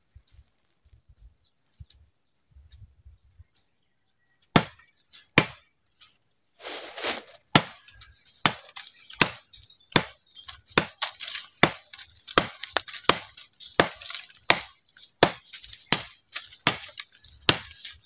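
Machete blade chopping into a slender woody tree stem: two single strikes about four and a half seconds in, then steady hacking at about two strokes a second.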